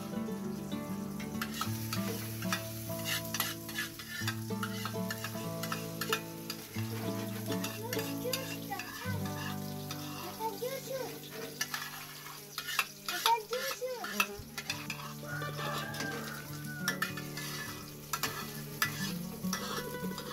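Eggplant slices sizzling in hot oil in a frying pan, with metal tongs clicking and scraping against the pan as the slices are turned.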